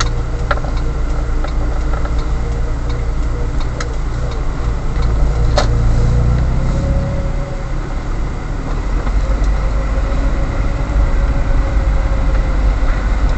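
Car engine and road rumble heard from inside the cabin as the car drives slowly, with a faint wavering whine over it. A few faint ticks come in the first few seconds, and a single sharp click about five and a half seconds in.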